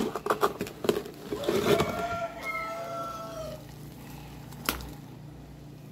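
A rooster crowing once, a long call of about two seconds that drops in pitch at the end. Before it, a few light kitchen clicks and knocks, and one more knock a little later.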